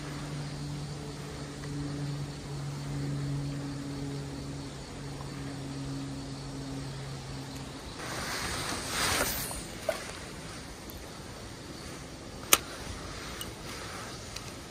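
Spinning reel being cranked in, a steady low whirring hum that stops about eight seconds in. Then the rushing swish of a cast, and a sharp click about twelve seconds in, like the reel's bail snapping shut.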